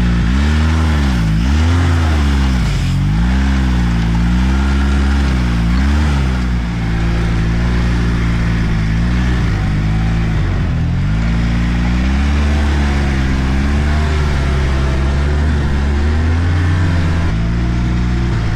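Arctic Cat F1100 Turbo snowmobile's four-stroke turbocharged engine, its pitch rising and falling several times as the throttle is worked, then running at a steadier speed after a dip near the middle.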